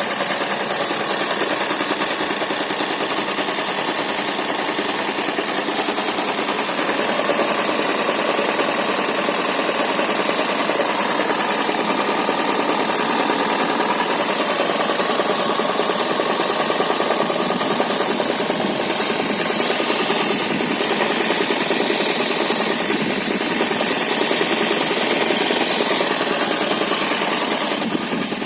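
Toyota Prius (NHW11) 1.5-litre four-cylinder petrol engine running with a steady, rapid knock. The engine is failing: compression has dropped in one cylinder and the front crankshaft oil seal has been pushed out.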